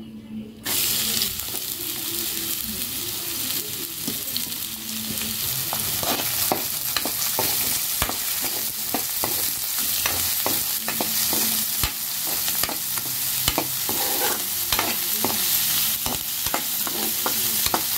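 Sliced onions, green chillies and shredded cabbage hitting hot oil in a pan and sizzling, starting about a second in. They are then stir-fried with a spatula, with frequent clicks and scrapes against the pan over the steady sizzle.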